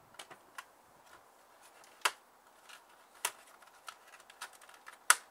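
Stiff clear plastic packaging being handled: scattered light crackles and ticks, with three sharper clicks, the last and loudest near the end.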